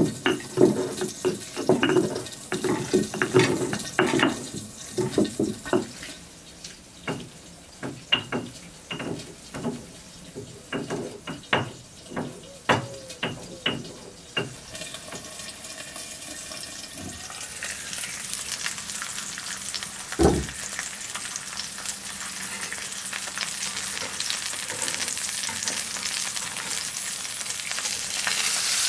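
Stone mortar and pestle pounding and grinding chopped green peppers in quick, dense knocks, thinning out to scattered knocks and clicks. About halfway through, sizzling starts and grows steadily louder as a dry-aged pork steak fries on a hot clay grilling plate.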